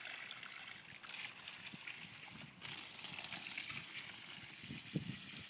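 Water spraying from a garden hose and splattering onto the ground and plants, a faint steady hiss.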